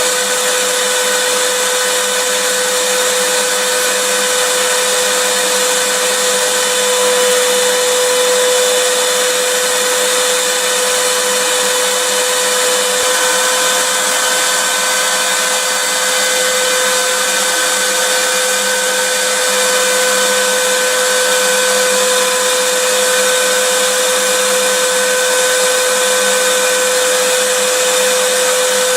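Vacuum cleaner motor running continuously, a loud steady rushing noise with a constant whine.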